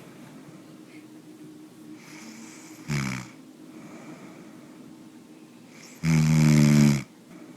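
A man snoring: a short snore about three seconds in, then a louder, longer snore lasting about a second near the end.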